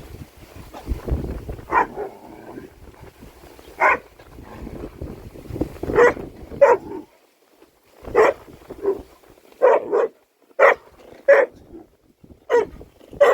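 Vizsla barking repeatedly, about a dozen short barks coming faster toward the end, with wind rumbling on the microphone in the first half.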